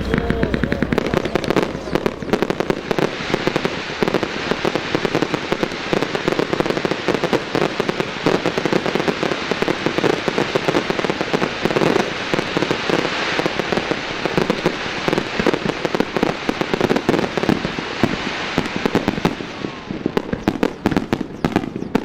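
Fireworks going off as a dense, continuous crackle of many small rapid bursts, thinning out near the end.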